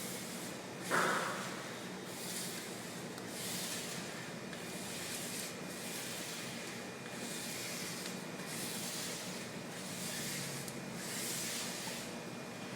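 Soft rubbing strokes, about one a second, like a sticker being smoothed down onto a floor, with one short louder scrape about a second in, over a steady low hum.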